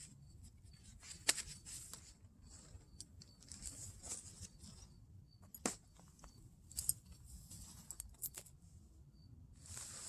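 Faint scattered clicks and rustling over a low, quiet background rumble, with a sharper click about a second in and another near the middle.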